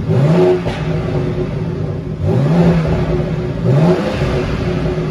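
BMW S58 twin-turbo inline-six in a 2020 X3M, freshly flashed with an MHD tune, blipped three times from idle, its pitch rising and falling with each blip, with exhaust burble as the revs drop.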